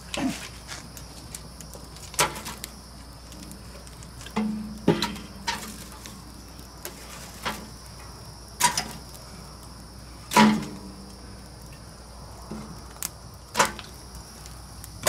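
Oak logs being set into the steel firebox of a homemade grill built from an air compressor tank: several separate knocks of wood on wood and metal, a few seconds apart.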